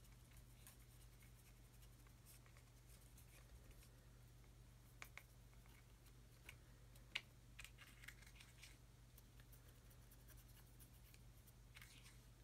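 Near silence: faint scratching of a fine paintbrush working dry weathering pigment onto a small plastic model part, with a few light clicks, the sharpest about seven seconds in, over a low steady hum.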